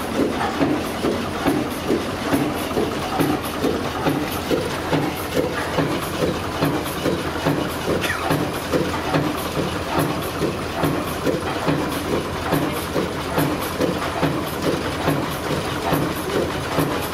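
Vintage Gardner diesel engine idling with a steady, even knocking beat.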